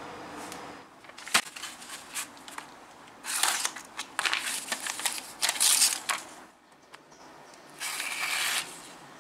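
A sheet of paper rustling and crinkling as it is handled, then the sharpened edge of a cold-forged wire razor dart slicing through it in one stroke of under a second near the end. A sharp click comes about a second and a half in.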